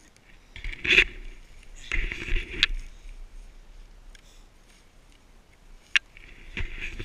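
Sled runners and boots scraping and crunching over packed snow, with two louder bursts about one and two seconds in and a sharp click near the end.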